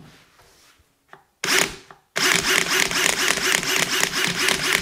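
Metabo SB 18 LTX BL I brushless cordless hammer drill running free in its pulse-screwdriving (Impulsschrauben) mode: a short burst about a second and a half in, then about three seconds of a fast, even pulsing whir.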